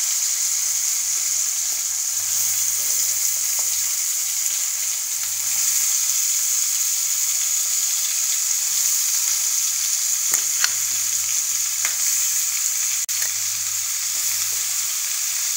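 Potato wedges frying in hot oil in a kadai, a steady sizzle just after they were put into the oil, with a few light ticks a little past the middle.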